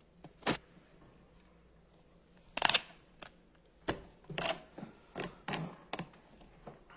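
Handling noise from a phone being adjusted as it starts recording: a series of sharp clicks and knocks, the loudest cluster about two and a half seconds in, followed by a run of shorter taps and rustles.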